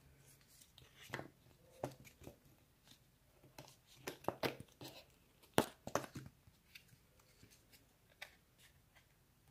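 Cardboard being handled and worked by hand: scattered crinkles and sharp clicks, thickest about four to six seconds in, the loudest a single snap just before six seconds.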